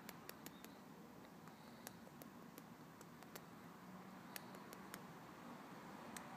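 Near silence: faint room tone with a dozen or so tiny, scattered clicks and ticks at irregular intervals.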